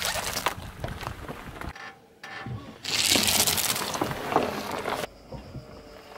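A car tyre rolling slowly over gritty asphalt and crushing objects in its path, with crackling and crunching. It comes in separate takes that cut off suddenly, the loudest from about three to five seconds in.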